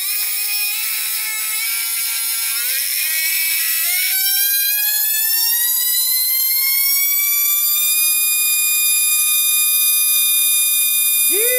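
Team30 20 mm micro electric ducted fan running up: a high whine that climbs in pitch for about eight seconds as the throttle opens, then holds steady at full speed. The sound goes rough briefly partway up the climb, the mid-throttle rasp the builder traces to the motor shaft.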